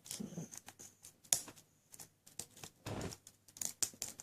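A lock pick working the serrated pins inside an ACE A527 padlock's keyway under light tension: a string of small, irregular clicks and scrapes of metal on metal.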